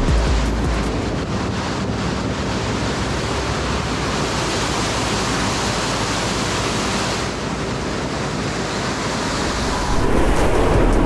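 Waterfall rushing steadily, an even, loud water noise with no distinct events.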